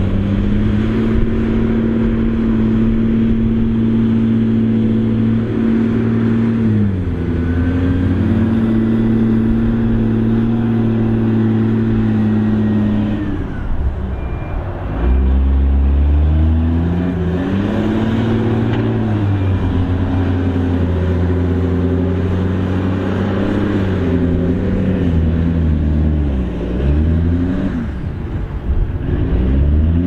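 Hydrema 922C articulated dump truck's diesel engine pulling the machine through deep mud, its revs dropping and climbing again several times.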